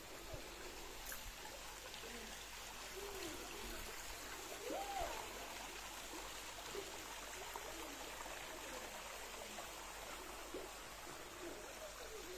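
Faint, steady rushing hiss like running water, with faint far-off voices now and then.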